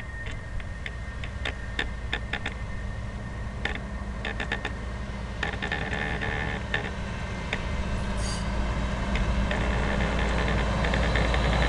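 Hi-rail dump truck approaching along railroad track: a low engine rumble growing steadily louder, with irregular sharp clicks throughout.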